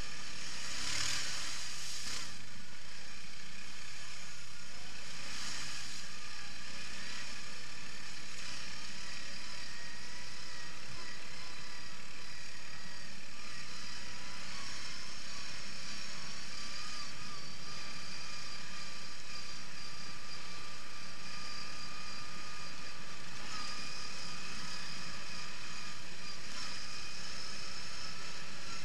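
Quad bike (ATV) engine running steadily while riding a dirt trail, heard from the rider's helmet camera, with a rush of water spray as it crosses a puddle about a second in and another brief rush a few seconds later.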